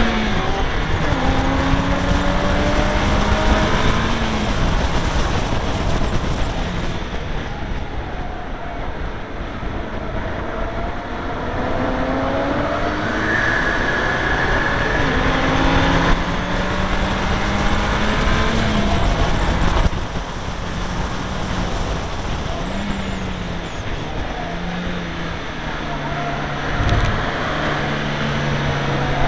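Seat Leon Cupra R's turbocharged four-cylinder engine heard on board at full throttle on track, the engine note climbing with revs and dropping sharply at each gear change, several times over.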